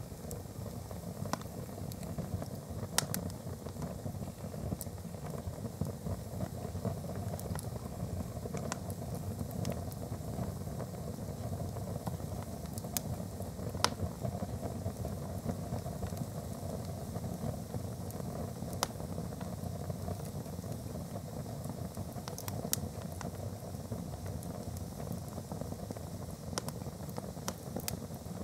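Fire on a fireplace grate burning a pair of canvas plimsolls: a steady low rush of flame with scattered sharp crackles and pops, two of them louder than the rest.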